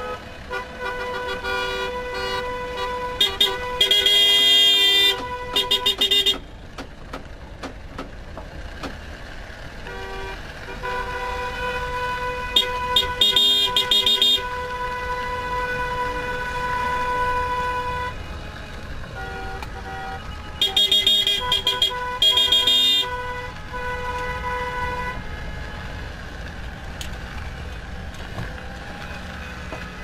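Car horns of a slow-moving celebration convoy honking: long held blasts overlapping one another, with three louder spells of rapid repeated honking, at about four, thirteen and twenty-one seconds in.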